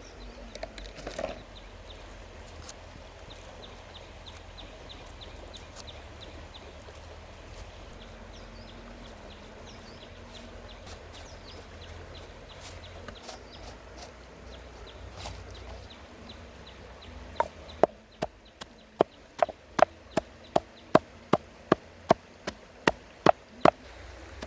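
A steady low hum with faint light ticking, then, from about two-thirds of the way in, a run of sharp, evenly spaced knocks, about two a second.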